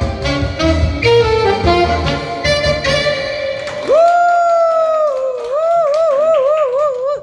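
Saxophone playing the closing phrase of a song over an accompaniment with bass and drums. About four seconds in the accompaniment stops, and the saxophone holds a long final note alone. The note dips slightly, then wavers in a wide vibrato until it cuts off at the end.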